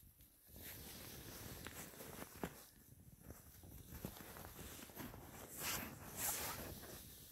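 Faint footsteps in snow, with two louder steps near the end.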